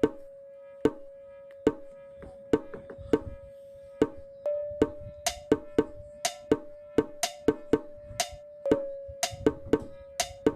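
Background music: a steady held drone note under sharp percussion hits, spaced about a second apart at first and quickening from about halfway.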